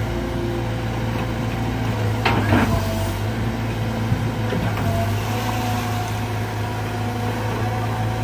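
Sumitomo SH120 A1 excavator's diesel engine running steadily with a low hum, with a brief louder sound about two and a half seconds in.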